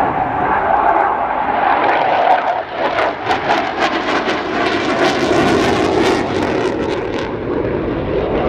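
Panavia Tornado's twin Turbo-Union RB199 turbofans running at high power in a close display pass, a loud jet noise with a rough crackle from about three to seven seconds in. Near the end its afterburners are lit as it pulls up into a climb.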